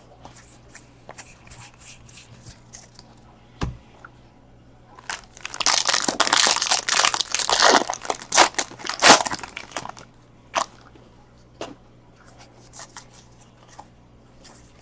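Foil wrapper of a 2016 Bowman Draft baseball card pack being torn open and crinkled, a dense crackling from about five to ten seconds in. Before and after it, light clicks of trading cards being flicked through in the hands.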